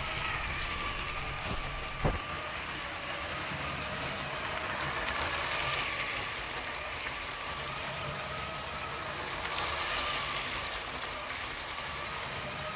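Motorized LEGO 21344 Orient Express train running on plastic LEGO track, driven by 9-volt motors. A steady motor whine from the geared 9-volt train motor sits over the rattle of wheels on the track, louder as the train passes close about six and ten seconds in. One sharp click comes about two seconds in.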